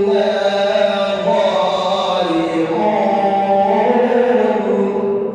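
A male reciter chanting the Quran in melodic tajweed style, drawing out long, gliding notes in one continuous phrase that thins out near the end.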